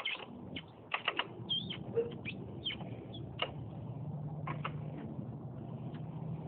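Rear suspension of a Talaria electric dirt bike squeaking as it is compressed: a series of short high squeaks, sometimes several in quick succession, thinning out after about four seconds. A low steady hum comes in during the second half.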